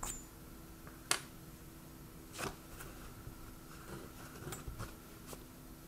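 Light clicks and taps of small metal tool pieces being handled and swapped: the rods and pin-vise handle of an airbrush needle bearing replacement kit. The sharpest click comes about a second in, with a few fainter ones later.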